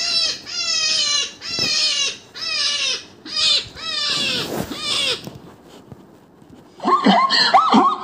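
Recorded animal calls played from a small portable speaker. Six short calls, each falling in pitch, come in the first five seconds. After a short pause, a different, faster run of rising-and-falling calls starts about seven seconds in.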